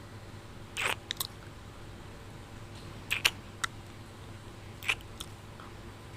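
Kissing sounds: a series of short lip smacks in small clusters a second or two apart, about eight in all.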